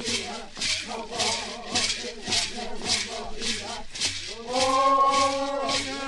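Guarani Kaiowá prayer chant: gourd rattles (mbaraka) shaken in a steady beat of about two shakes a second, with several voices singing. The held sung notes grow louder about four and a half seconds in.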